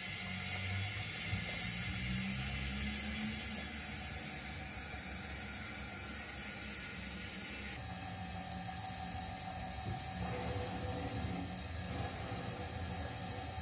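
Low, steady rumble of 0 gauge model railway coaches rolling slowly along the track, with a faint hiss over it.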